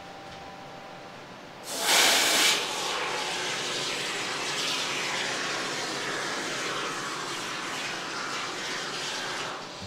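Can of expanding spray foam insulation spraying: a hiss that starts about two seconds in, loudest for the first half second or so, then runs on steadily and stops just before the end.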